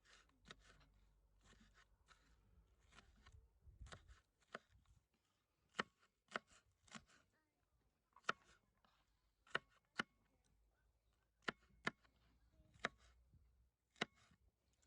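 A knife chopping on a cutting board in slow, separate strokes: soft handling and rustling at first, then about ten sharp knocks from about six seconds in.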